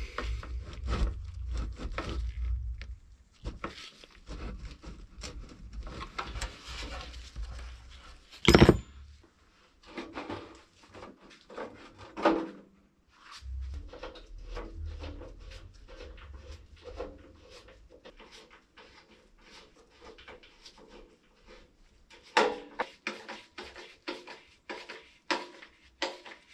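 Hand work on an air compressor's plastic fan shroud: a bolt tightened with a screwdriver and parts handled, giving scattered clicks, rattles and scrapes, with one sharp knock about eight and a half seconds in.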